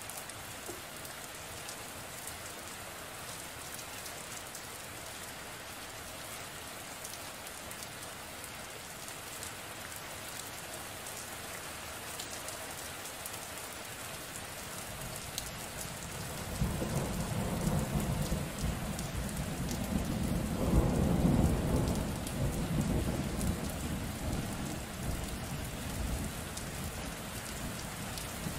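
Steady rain throughout, with a long roll of thunder that rumbles in a little past halfway, swells to its loudest about three quarters of the way through, then slowly eases off.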